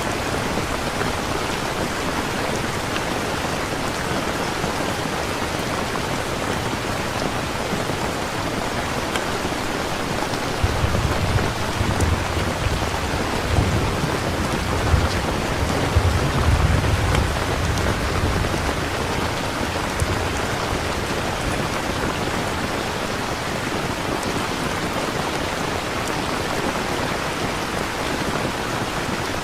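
Steady, heavy rain falling as an even hiss, the rain-sound ambience laid under the video. From about a third of the way in, a low rumble of thunder rolls for several seconds and then fades back into the rain.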